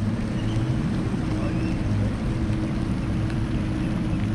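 Boat engine running steadily at low speed, a constant hum with water and wind noise over it.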